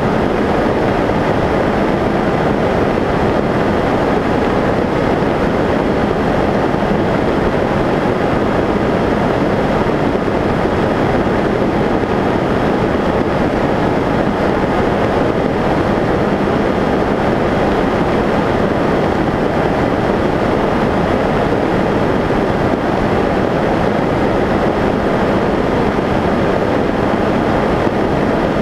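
Steady rush of airflow over the microphone of a camera riding on a Skyshadow S800 foam flying wing in cruising flight, with faint steady tones from its electric pusher motor and propeller; it holds level throughout.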